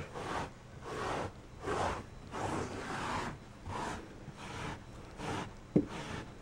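A cloth rubbed in quick back-and-forth strokes over carpet pile on a stair tread, a rasping swish about every two-thirds of a second, lifting cat fur out of the carpet. A single short tick sounds near the end.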